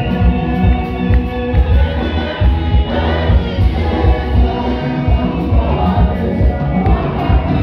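Live gospel choir singing with a band, amplified through the PA, over a heavy pulsing bass beat.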